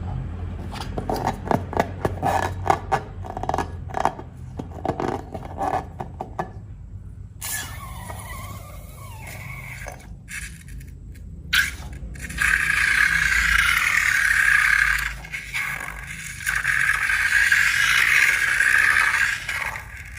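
Hands working slime and rubber balloons: a quick run of sticky clicks and snaps for about seven seconds, then a louder, continuous scraping squeak with a wavering pitch that stops briefly a few times.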